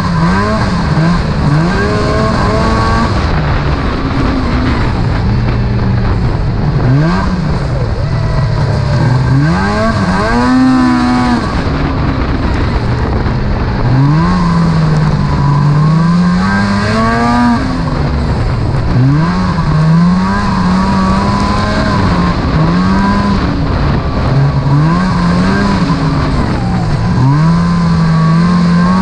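Snowmobile engine running hard along a trail, its pitch rising and falling again and again as the throttle is worked, with two sharper high-revving sweeps partway through, over a constant rush of wind and track noise.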